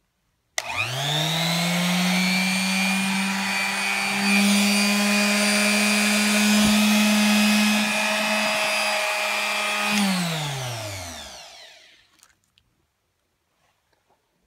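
Ryobi S652D quarter-sheet sander's electric motor switched on, running unloaded and then switched off. It jumps to full speed about half a second in and holds a steady hum that sounds like a vacuum. About ten seconds in it winds down, the pitch sliding lower as it coasts to a stop.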